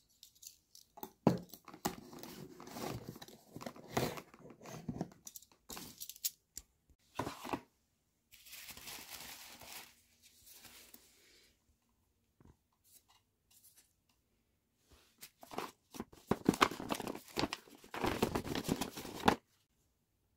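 Cardboard box and paper packaging unpacked by hand: packing tape torn off, then cardboard and paper wrapping rustling and crinkling in irregular spells of clicks and scraping. The loudest handling comes near the end and stops abruptly.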